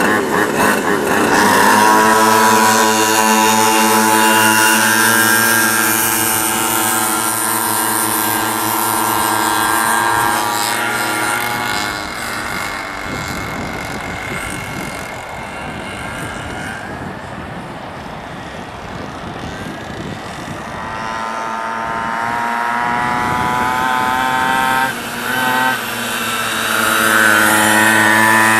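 Several pocket bikes (minimotos) with small two-stroke engines revving hard off the start and holding high revs as they pull away. The engine sound fades about halfway through as the bikes go round the far side of the track, then grows louder again near the end as they come back.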